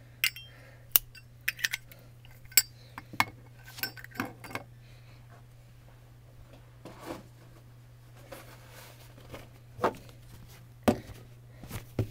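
Scattered clicks, clinks and knocks of small hard objects being picked up and set down while tidying, over a steady low hum.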